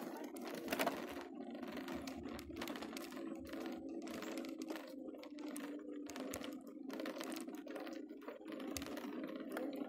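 Outdoor ambience mangled by the Lenovo Mirage VR camera's built-in noise cancellation: a steady low hum with irregular clicks and crackles, the higher sound chopping in and out.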